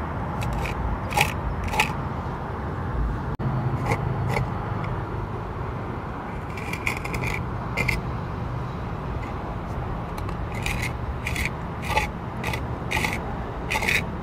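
Putty knife scraping stucco patch into the gap around a plastic electrical box in a stucco wall, in short strokes: a few in the first two seconds, a cluster about seven seconds in, and a quicker run near the end.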